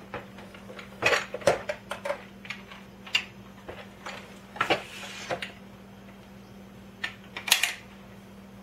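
A plastic rotary-tool accessory case being opened and its clear tray of bits lifted off the base: plastic clicks and the rattle of the small accessories inside, in several short bursts about a second in, around five seconds and near the end.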